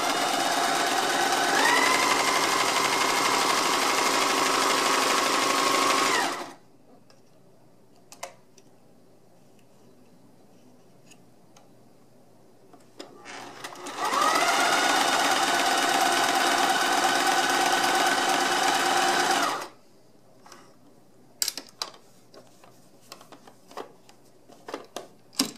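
Sears Kenmore 3/4-size sewing machine stitching through fabric in two runs of about six seconds each. Its motor whine steps up in speed shortly after each run starts. Between the runs and near the end there are light scattered clicks and taps.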